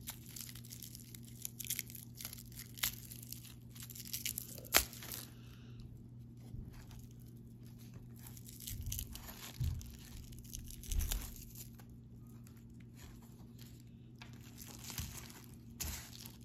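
Thin plastic wrapping and bubble wrap crinkling as they are peeled off a brass razor by hand, busiest in the first few seconds, with a sharp click about five seconds in and a few soft handling knocks later on.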